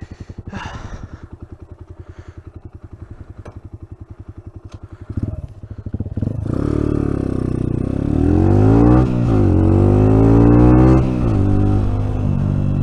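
Pulse Adrenaline 125's single-cylinder four-stroke engine idling with a fast, even beat, then a brief clatter about five seconds in. It pulls away, the engine note climbing in pitch, dropping back at a gear change, climbing again, then holding steady at a cruise with wind rush.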